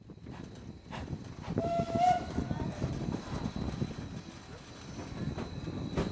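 760 mm narrow-gauge steam train Mh.1 running, its carriage wheels clattering over the rails, with one short blast of the locomotive's steam whistle about two seconds in.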